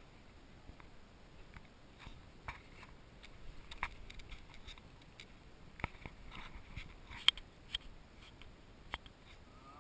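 Scattered sharp clicks and light scraping at irregular intervals over faint background noise, with a few louder snaps in the second half.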